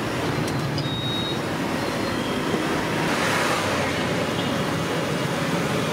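Masala vadas deep-frying in a large kadai of oil: a steady sizzle of bubbling oil that swells about three seconds in as the batch is stirred with a slotted ladle, with street traffic running underneath.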